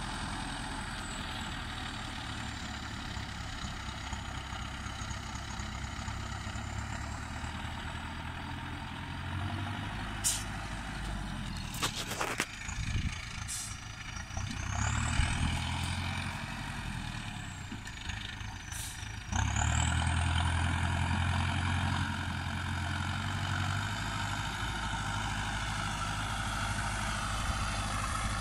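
MTZ 820.4 tractor's turbocharged diesel engine running under changing load while it works the front loader and drives with a round hay bale, revving up about halfway through and again after two-thirds of the way. A high whine slides up and down over it, and there are a few sharp knocks.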